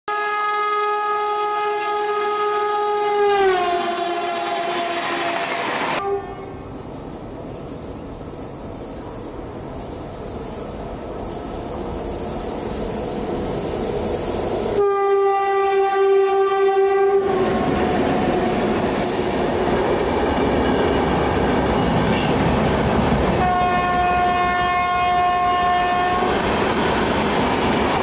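Indian Railways WAP-7 electric locomotives sounding long horn blasts as express trains run through stations at speed: a first blast that drops in pitch as the locomotive passes and then cuts off suddenly, followed by the growing rush and clickety-clack of an approaching train, a second horn blast about halfway through and a third near the end, with the steady rush of wheels and coaches passing close by.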